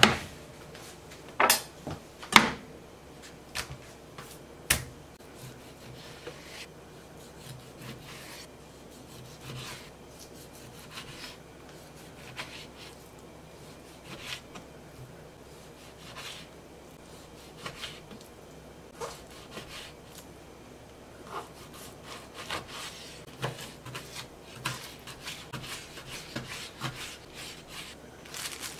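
Chef's knife slicing raw venison on a plastic cutting board: soft cutting strokes with the blade tapping the board every second or two. There are a few sharper knocks in the first five seconds and quicker small knocks near the end.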